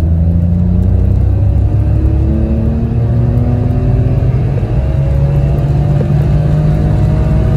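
Citroen C1's 1.0-litre three-cylinder petrol engine under full throttle in second gear, heard from inside the cabin, its note climbing steadily as the revs and speed build. The engine is running on slightly larger Yaris T-Sport injectors.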